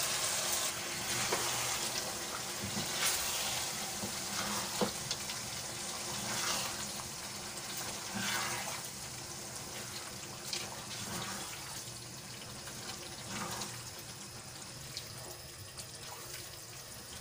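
Chicken curry bubbling in a wok as mashed turnip is stirred into it with a wooden spatula: a steady wet hiss with scattered short scrapes and knocks of the spatula against the pan, growing quieter toward the end.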